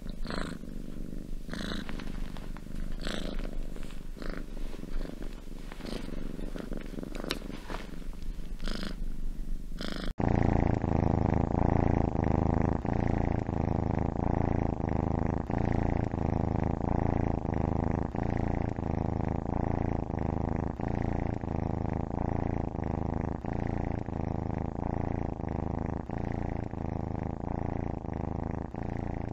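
Domestic cats purring. About ten seconds in, the sound cuts to a louder, deeper purr that swells and fades with each breath, a little faster than once a second.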